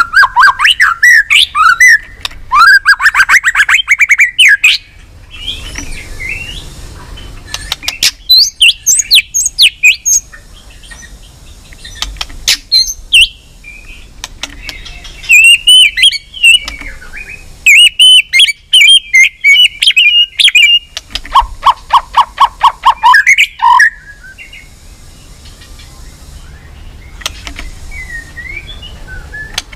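White-rumped shama singing a fired-up fighting song in bursts of loud, varied whistled phrases with sharp clicking notes, separated by short pauses. About three quarters of the way through comes a run of rapid repeated notes.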